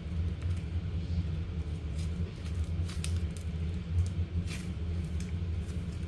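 Stretchy black slime squeezed and crunched by hand, giving scattered small crackling pops over a steady low rumble.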